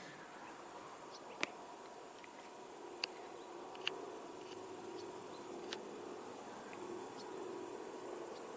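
Insects buzzing steadily and high-pitched, with a few sharp clicks scattered through.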